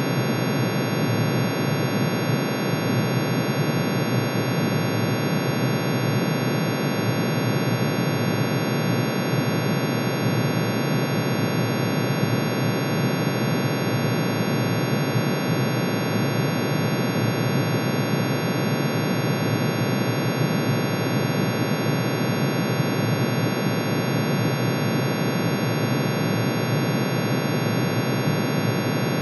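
Synthesized drone of iron's atomic emission spectrum: one sine tone for each spectral line, pitch-shifted into hearing range and summed into a dense, unchanging chord that sounds like a noisy hum with many high steady tones over it.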